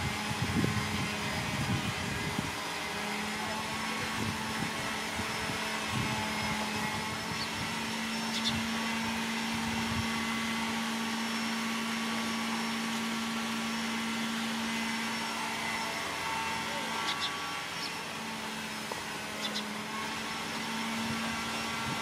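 A steady mechanical hum holding one low pitch, setting in a couple of seconds in over a constant background hiss, with a few faint short high ticks.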